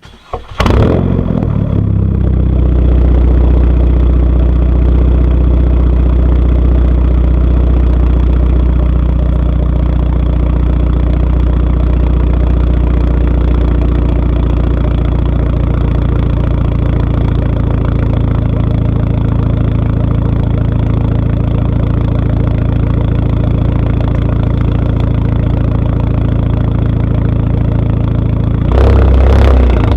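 Straight-piped 2.0-litre turbocharged four-cylinder engine of a 2010 Volkswagen CC firing up about half a second in, then idling steadily and loudly through the open exhaust. Near the end it gets louder, as with a rev or pulling away.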